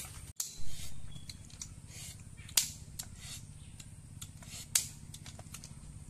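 Sharp snaps and cracks of sticks being worked by hand: loud ones about half a second, two and a half, and just under five seconds in, with smaller clicks between.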